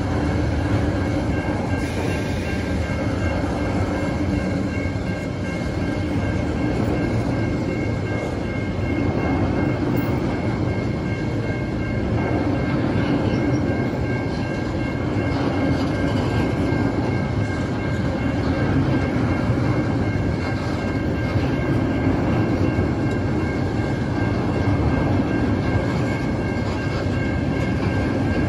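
Freight train wagons rolling past: container flats and empty log wagons giving a steady rumble of steel wheels on rail, with a thin steady high tone over it.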